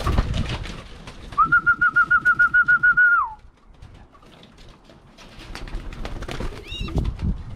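A warbling call whistle blown once for nearly two seconds, dropping in pitch as it stops, to call racing pigeons into the loft, with a short rising whistle near the end. Pigeons coo and there are scattered clatters throughout.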